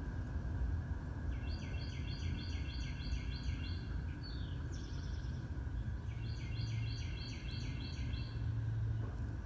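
A low, steady churning rumble, an unexplained noise from under a house. A bird sings over it twice, each time a run of quick, evenly repeated high notes, about three a second.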